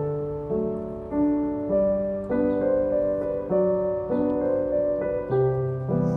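Background piano music: a gentle, steady run of chords that change about every half second.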